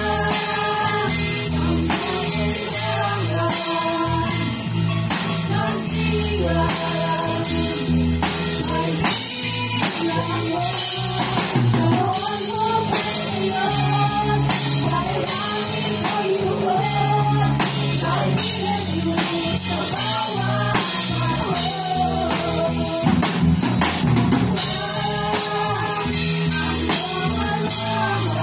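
Two girls singing a Tagalog song together into microphones over instrumental accompaniment with a steady beat.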